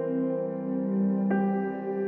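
Calm new-age background music of held, sustained tones, with a new chord coming in a little over a second in.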